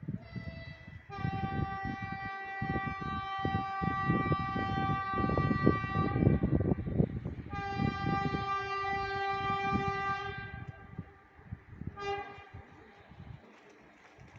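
EP2D electric train passing and sounding its warning signal. There is a brief tone at the start, then two long blasts of several seconds each, then a short final blast about twelve seconds in. Underneath runs the rumble of the train rolling along the track, which dies away after the second long blast.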